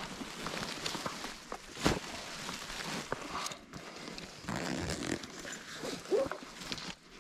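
Crunching and rustling of dry leaf litter and brush underfoot, as of someone walking through woods, with a sharp thump about two seconds in and a short squeak near the end.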